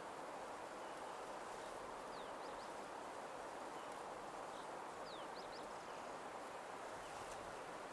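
Nature ambience: a faint, steady rushing noise, with a small bird giving two brief bursts of three quick, high, falling chirps, one a couple of seconds in and one about five seconds in.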